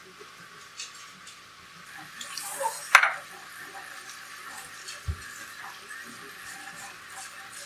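Water sloshing and dripping in a stainless steel bowl as salted cucumber is lifted out and squeezed hard by hand to press the water out. There is one sharp metal clank from the bowl about three seconds in, and a soft low knock a couple of seconds later.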